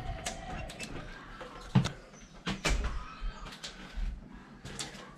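A door being handled and walked through: a handful of scattered knocks and clicks from the door and footsteps on a wooden floor, the loudest a low thump about two seconds in.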